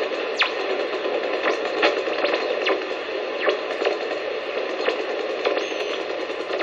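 Hallicrafters S-38E shortwave receiver on band 3 giving a steady hiss of static while it is slowly tuned, broken by frequent short crackles and brief sweeping whistles as the dial passes across signals.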